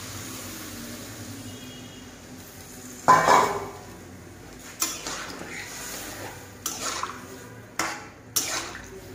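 Water poured from a steel bowl into an iron kadai of chicken curry, a steady splashing pour. About three seconds in there is one loud metal clank. After it a metal spatula knocks and scrapes against the pan several times as the curry is stirred.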